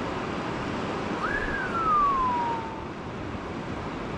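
Steady rushing of surf and wind on the shore, with one clear whistled note about a second in that jumps up quickly and then glides slowly down.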